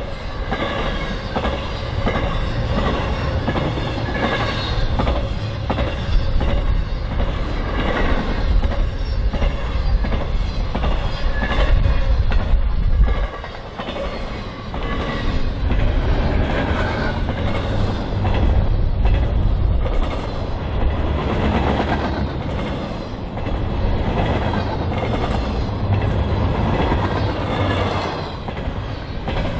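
The cars of a fast intermodal freight train, trailers on flatcars and double-stack container cars, passing close by: a steady heavy rumble of steel wheels on rail with a run of repeated clicks as wheel sets cross the rail. The noise dips briefly about halfway through.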